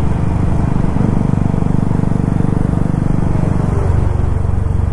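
Motorcycle engine running steadily with a low, even note, its upper tones thinning a little about four seconds in.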